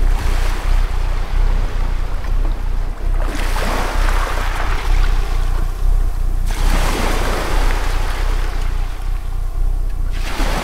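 Sea waves surging and washing in three swells about three seconds apart, over a steady low rumble.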